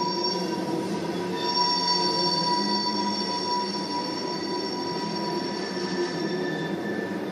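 Railroad tank cars of a Norfolk Southern oil train rolling past, wheels squealing with several steady high-pitched tones over a continuous rumble.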